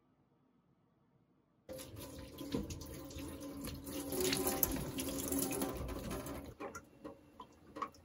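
Water running from a tap into a sink, turned on suddenly about two seconds in and shut off about five seconds later, followed by a few light clicks and knocks.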